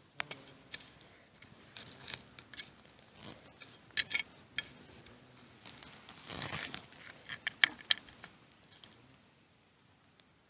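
Close handling sounds: a run of irregular sharp clicks and snaps, with a stretch of rustling a little past the middle.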